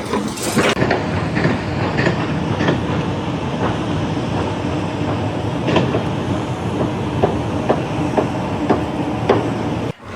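Steady mechanical rumble with a low hum and repeated irregular clanks and knocks, cutting off suddenly near the end.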